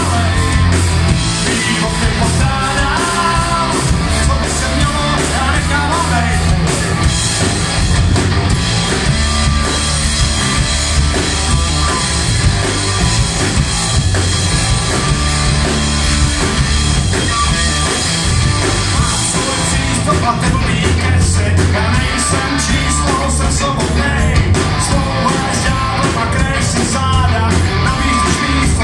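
Live rock band playing: electric guitars, bass guitar and drum kit, loud and continuous.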